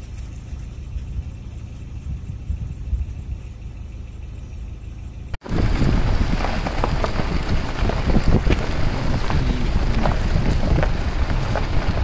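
Low, steady rumble of a vehicle engine running. About five seconds in, after a brief cut, it turns louder, with crackling noise on top.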